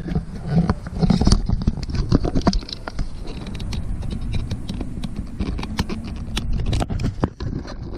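Irregular plastic clicks and scraping as a Pontiac Firebird's power window switch is worked loose and pulled out of the door panel by hand.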